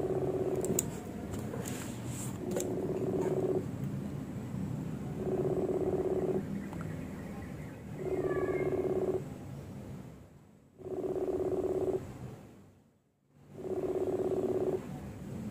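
Telephone ringing tone: a low buzzing tone in pulses of a little over a second, repeating about every three seconds, as a phone call rings.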